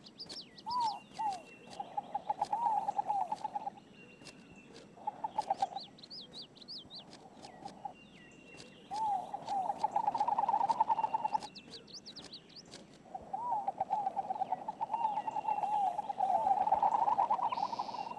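Wild birds calling: runs of quick, wavering low notes lasting a second or more, repeated several times, with higher chirps and short whistles over them.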